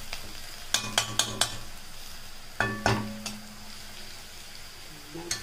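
Onions, green chillies and curry leaves frying in oil in an iron kadai, sizzling while a perforated metal ladle stirs and scrapes them. The ladle clinks against the pan four times in quick succession about a second in, then strikes it with a louder ringing knock at about three seconds.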